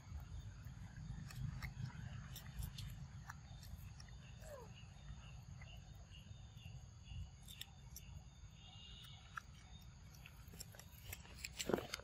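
Macaques biting and chewing cucumber, crisp scattered clicks over a low outdoor rumble, with one short falling call about four and a half seconds in and a louder flurry of clicks and knocks near the end.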